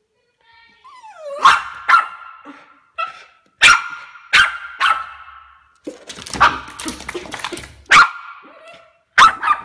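West Highland Terrier barking sharply and repeatedly, high-pitched, with a short falling whine about a second in and a denser run of barks around the middle, as it barks at a cat through the window glass.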